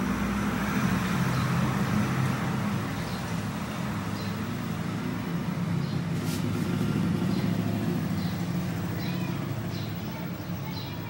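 Steady low rumble of a motor vehicle engine running, easing off slightly near the end, with faint short high chirps over it.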